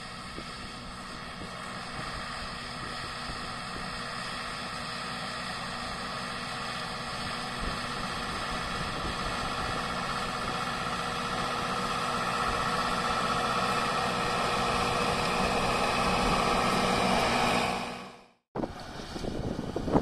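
Valtra BM100 tractor's diesel engine pulling a 40-disc offset harrow under load, a steady drone that grows steadily louder as the tractor approaches. The sound breaks off for a moment near the end and comes back rougher and noisier.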